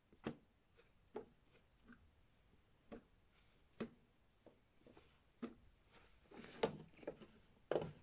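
Clothes being handled and tossed into a front-loading washing machine drum: faint soft fabric rustles and light thumps every second or so, with a longer, louder rustle near the end.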